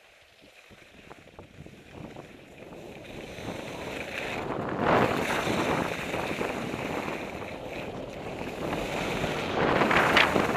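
Skis sliding over soft spring snow, with wind rushing on the helmet microphone as the skier picks up speed. It builds from near quiet, with louder swishes about five seconds in and again near the end.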